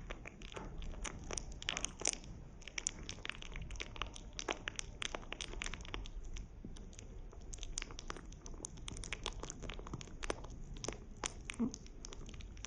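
Pet rabbit chewing food close to the microphone, a rapid, irregular run of small clicks and crackles.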